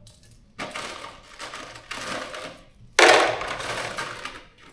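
Steel bolts and nuts clattering as handfuls are dropped into a fastener kit: a couple of smaller rattles, then a loud clatter about three seconds in that dies away.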